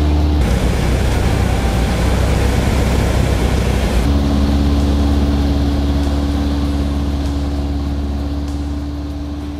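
Light propeller aircraft's piston engine and propeller droning steadily in flight. A stretch of rougher rushing noise covers the first few seconds, after which the steady engine note returns and slowly fades near the end.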